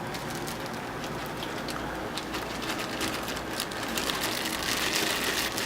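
Aquarium water splashing and bubbling as a steady crackling hiss, a little louder near the end.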